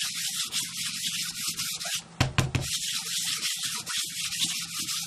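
Embossing buddy anti-static pouch wiped briskly back and forth over cardstock, a rapid scratchy rubbing that prepares the card so embossing powder sticks only to the ink. The rubbing pauses briefly a little after two seconds in, with a couple of soft knocks, then carries on.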